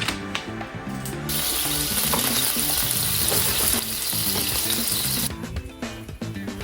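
Food frying in a hot pan: a loud sizzle comes in about a second in and cuts off sharply about five seconds in, over background music.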